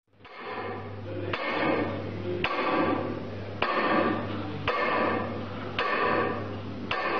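A claw hammer on a chain-driven pivoting arm in a kinetic sound sculpture strikes a metal bar about once a second, six strikes in all, each leaving a ringing tail. A steady low hum runs underneath and drops out briefly at each strike.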